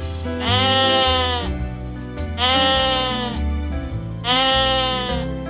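An animal bleating three times, each call about a second long with a steady pitch, evenly spaced about two seconds apart, over background music.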